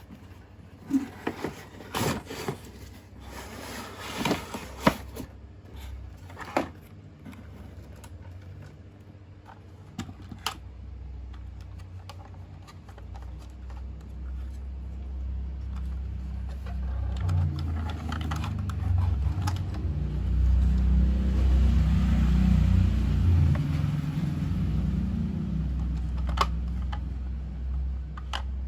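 A few sharp plastic clicks and knocks, then a toy RC truck's small electric motor running steadily. The motor gets louder after about ten seconds and eases off near the end.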